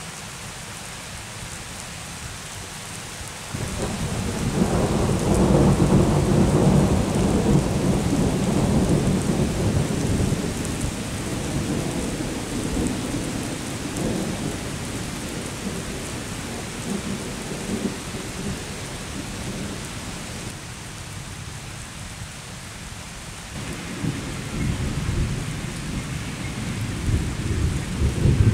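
Thunder following a nearby lightning flash over steady rain: a deep rumble sets in about three seconds in, is loudest for a few seconds and slowly rolls away. A second rumble builds near the end.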